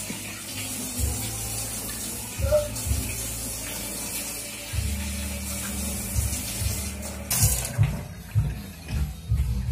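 Water running from a wall-mounted tap into a stainless-steel kitchen sink, a steady hiss that swells briefly and then stops about three quarters of the way through.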